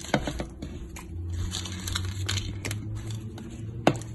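Fried pakoras being pushed off a plastic plate into a pot of thick kadhi: scattered light clicks and taps, with a sharper knock near the end. A low steady hum comes in about a second in.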